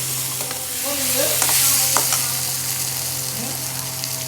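Food sizzling in a frying pan as it is stirred, with a few sharp clicks of the spatula against the pan about one and a half and two seconds in.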